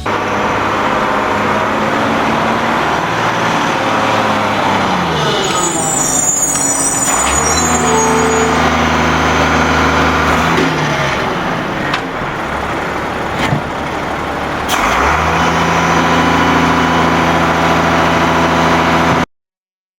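Truck engines running, heard in several spliced clips that change abruptly about seven and fifteen seconds in. The engine pitch drops around five seconds in, with a brief high hiss just after. The sound cuts off suddenly near the end.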